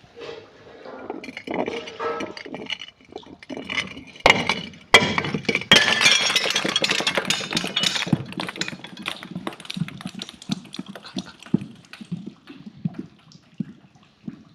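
Glass breaking and crunching: two sharp impacts a little over four seconds in, then a dense spill of clinking, crackling shards that slowly thins out.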